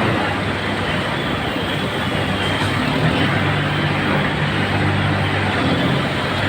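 John Deere tractor engine running steadily, a low even hum over loud broad noise.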